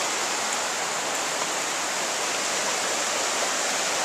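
Shallow mountain creek running fast over a rocky bed, a steady, unbroken wash of water noise.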